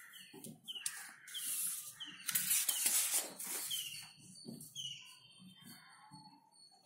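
Paper rustling as a sheet of notes is handled and turned, loudest in the middle. Behind it a bird chirps over and over in short falling notes.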